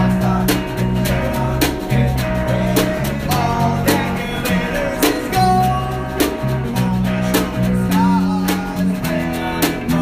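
A busker band's song: electric guitar and a drum keeping a steady beat, with men singing over them.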